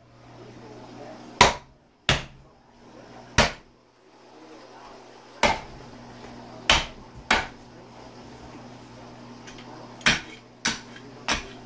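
Meat cleaver chopping into a pig's head on a cutting board: about nine sharp whacks at uneven intervals, some in quick pairs.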